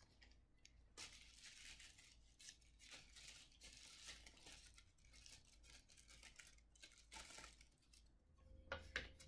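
Faint rustling and tearing of paper wrapping as a small gift is unwrapped by hand, with a few sharper crinkles near the end.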